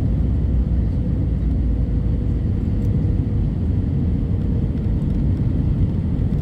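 Airbus A320-200 jet airliner heard from inside the cabin during takeoff: a steady low rumble of its engines and rushing air, with a faint hum that sinks slightly in pitch.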